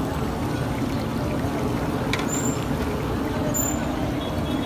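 Steady low rumble of street traffic, with a couple of brief high squeals near the middle.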